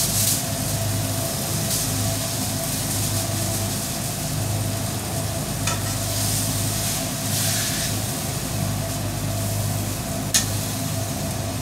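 Chicken and melted cheese sizzling on a flat-top griddle while a metal spatula scrapes and scoops it, with a few sharp taps of the spatula on the steel. A steady low hum runs underneath.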